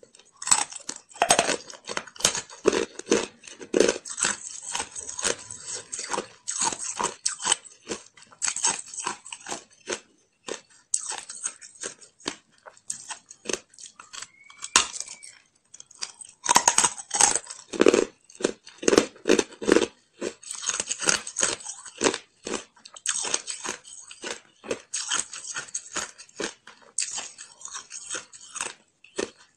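A chunk of hard ice being bitten and chewed, a rapid run of sharp crunches between the teeth with a pause of a few seconds about halfway through.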